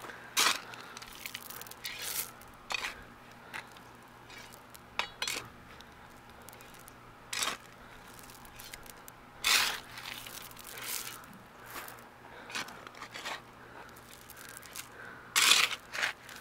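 Metal blade of a folding survival shovel scraping and crunching through gravel and dirt in short, irregular strokes, loudest about halfway through and near the end.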